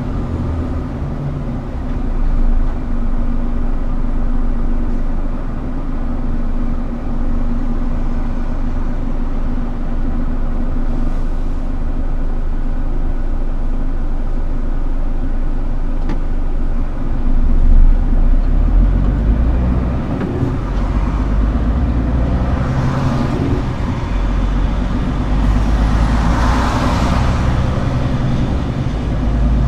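Scania R410 truck's diesel engine running steadily with a deep rumble, swelling briefly past the middle. A rushing, hiss-like noise rises twice near the end.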